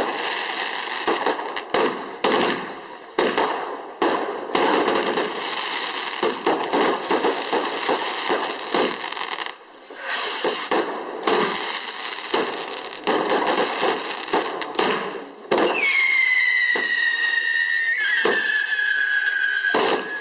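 Fireworks going off: rapid, irregular crackling and bangs for most of the time, then, about three-quarters of the way through, a shrill whistle that slowly falls in pitch and carries on to the end.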